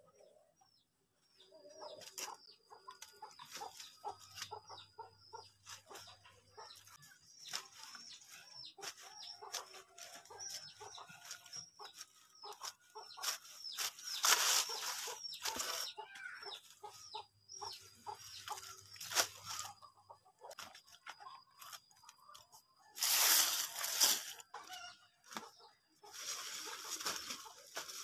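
Dry forest leaves and twigs rustling and crackling as they are handled and piled onto a compost heap, loudest in a few bursts about halfway through and near the end. Chickens cluck in the background.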